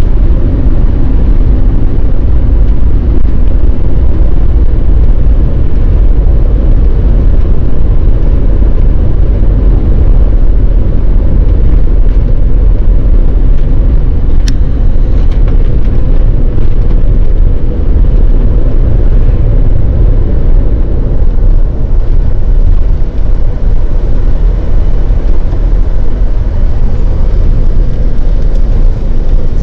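Steady low rumble of a bus's engine and tyres on the road, heard from inside the moving bus, with a single sharp click about halfway through.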